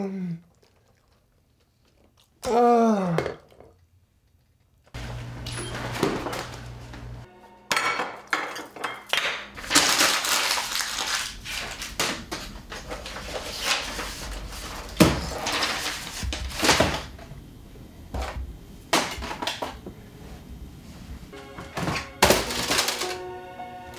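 A man groans loudly, his voice falling in pitch, about three seconds in. From about five seconds in, music plays over a string of thuds, knocks and clatters as laptop computers and books are swept and thrown from desks onto the floor.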